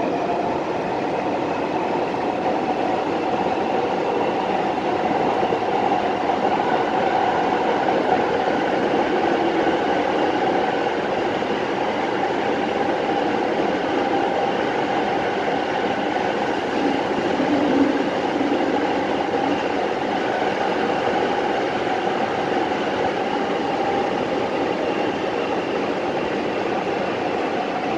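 Nagoya Municipal Subway 6000 series train heard from inside the car while running at steady speed between stations: a continuous rumble of wheels on rail with a steady whine from the traction motors.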